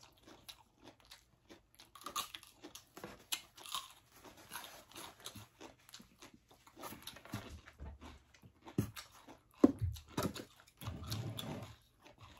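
Close crunching and chewing of food: crisp bites of raw cucumber and chewing of salted crab and rice, a scatter of short crunchy clicks with a few louder wet mouth sounds near the end.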